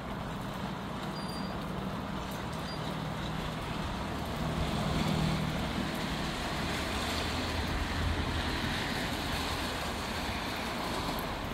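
Steady hiss of rain and wind, with the low hum of road traffic passing; a vehicle swells loudest about four to six seconds in.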